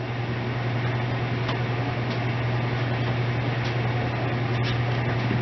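Steady low machine hum with an even hiss, and a couple of faint clicks about a second and a half and four and a half seconds in.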